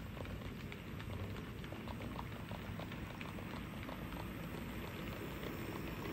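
On30 model steam locomotive running along the track pulling log cars: a low rumble from its motor and wheels with a patter of small irregular clicks as the wheels roll over the rails, growing a little louder about a second in.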